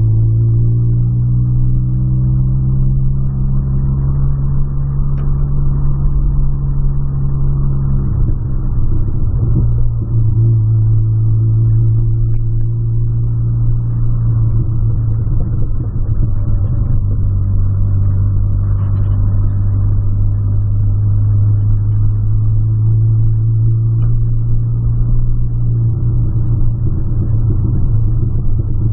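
Volkswagen Polo's engine droning steadily as heard from inside the cabin while driving, its note shifting about eight seconds in and again near the end.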